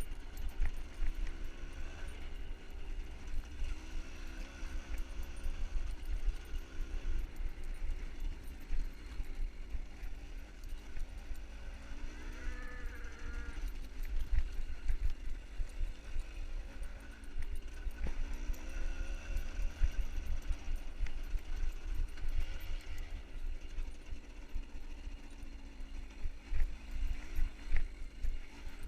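A herd of cattle being driven, with cows mooing now and then over a constant, fluttering low rumble.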